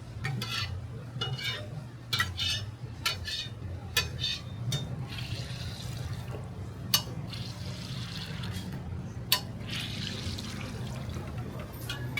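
Hotteok frying on an oiled griddle: a hiss of sizzling oil, with metal tools clicking and clattering against the griddle, over a steady low hum. The clatter comes in quick knocks during the first few seconds, followed by two sharp clicks later on.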